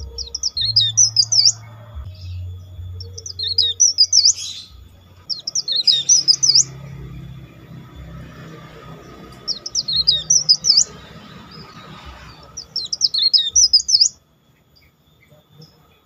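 Tralis songbird giving its whistled 'nyiul' song in five bursts of quick, high, sliding notes, each about a second long and a few seconds apart.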